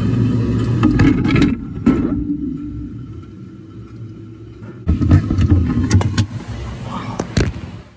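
Muffled low rumble with knocks and clatter from a phone that has fallen into a sinker EDM machine's tank of dielectric fluid and is recording from inside it. The rumble eases a couple of seconds in, then comes back with a burst of knocks as the phone tumbles, around five to seven seconds in.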